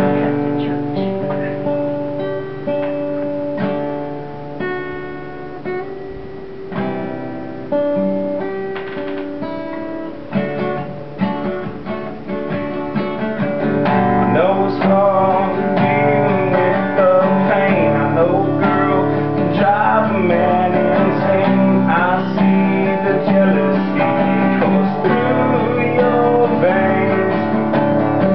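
Acoustic guitar played solo, notes picked and strummed; a voice starts singing along about halfway through and the music gets louder.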